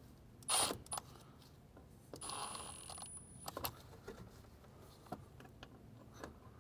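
Cordless driver tightening the screw of a worm-gear hose clamp on a rubber intake hose: a short burst of the motor about half a second in, then a longer, quieter run with a high whine from about two seconds in, and a few small clicks of the tool on the clamp.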